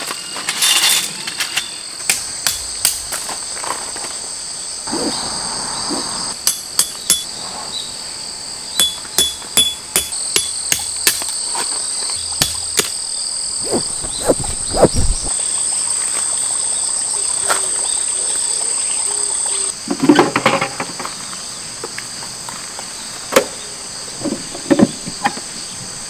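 A steady, high-pitched chorus of chirring insects, broken by scattered sharp knocks and clicks as tent pegs are driven in and tarp poles are handled.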